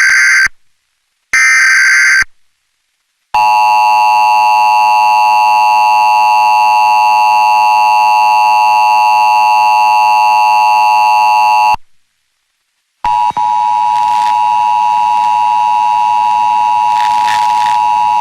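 Emergency Alert System activation tones. First come the last two screeching bursts of the digital SAME header. After a short gap the two-tone attention signal sounds, a steady chord of about eight seconds. It breaks off for a second, then a single steady tone near 1 kHz begins over a faint hiss.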